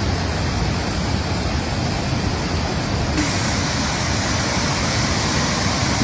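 Steady rush of muddy floodwater from a rain-swollen creek in flash flood. The rushing turns brighter and hissier about three seconds in.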